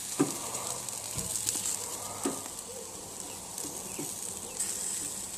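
Sausages and chicken sizzling on a charcoal grill grate, a steady hiss, with a few light clicks of metal tongs, the sharpest about a quarter second in.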